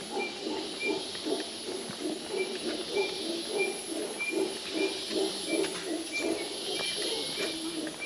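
Mantled howler monkeys howling: a long, rhythmic run of pulsing calls that goes on without a break.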